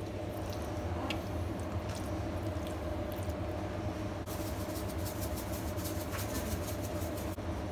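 Salt shaken from a plastic shaker onto raw chicken: a quick run of fine ticks starting a little past halfway, over a steady low hum.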